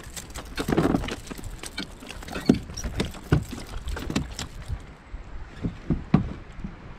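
Irregular clicks and knocks of fishing tackle being handled aboard a plastic kayak, as rod, reel and line are worked by hand, with a low rumble in the first seconds.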